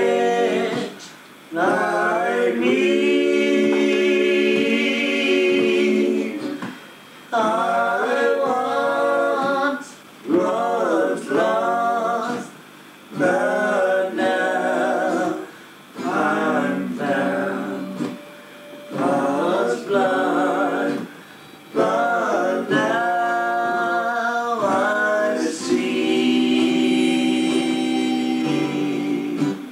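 A small group of men and women singing together in phrases of a few seconds, with an acoustic guitar strummed along. A harmonica comes in near the end.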